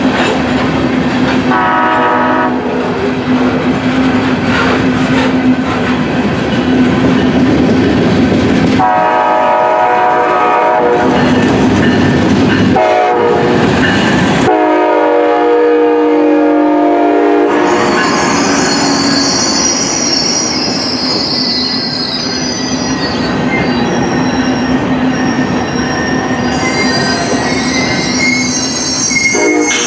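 A freight train of covered hopper cars rumbling past, while a passing Amtrak train's Siemens Charger locomotive sounds its chord horn: a short blast about two seconds in, then several long blasts from about nine to seventeen seconds. After that, high-pitched wheel squeal rises over the rolling noise as the passenger cars go by.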